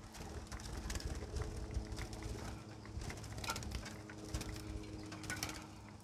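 Caged lovebirds chirping in short, scattered calls, among light clicks and rustling, over a low rumble.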